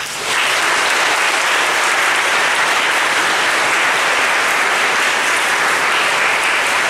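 An audience applauding: steady clapping that starts suddenly and keeps an even level.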